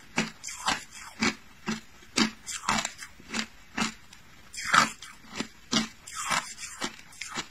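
Crushed ice being crunched between the teeth: a steady run of crisp crunches, about two a second, the loudest a little under five seconds in.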